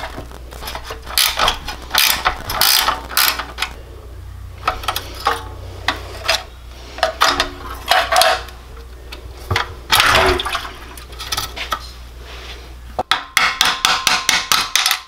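Ratcheting wrench clicking in short runs as it loosens the governor arm clamp nut on a small single-cylinder engine, with light metal clinks and scrapes from the governor parts being handled. Near the end comes a faster, even run of clicks.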